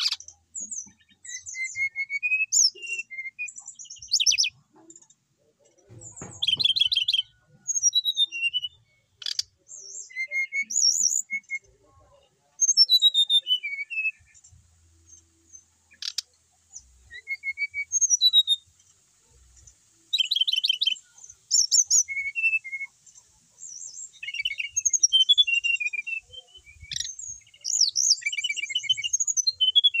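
Brown-chested jungle flycatcher singing a long, varied song of short whistled phrases, fast trills and rising and falling notes, delivered in bursts with brief pauses between them.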